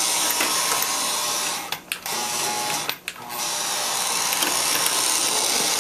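Homemade O gauge turntable's motor-driven worm-gear drive running steadily as the turntable turns, a grinding mechanical whir. It cuts out briefly twice, about two and three seconds in.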